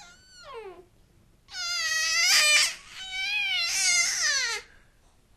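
A cat meowing in long, drawn-out wails: a short cry falling in pitch, then two long wails, the second sliding down at the end.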